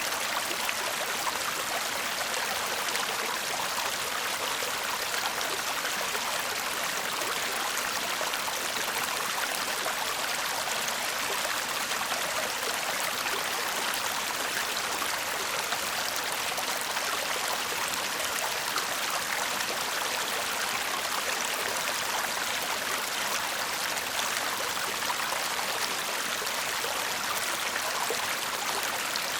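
Small stream babbling and murmuring steadily over rocks, an even rush of water with a light splashing texture.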